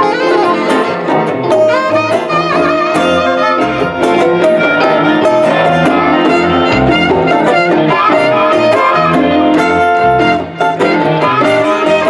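A live band playing on an open porch, with a saxophone carrying the lead line over electric guitars, bass, drums and congas.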